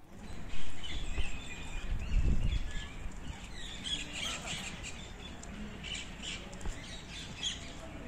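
Rose-ringed parakeets chirping, a run of short high calls starting about three and a half seconds in. Low rumbles near the start, the loudest about half a second in.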